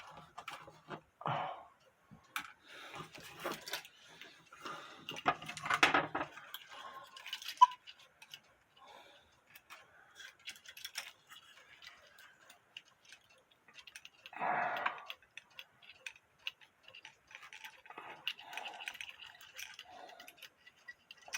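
Scattered light clicks, taps and small metallic rattles of hand tools and clock parts being handled while working on a quarter-hour cuckoo clock's hands and movement, with one brief louder sound about two-thirds of the way through.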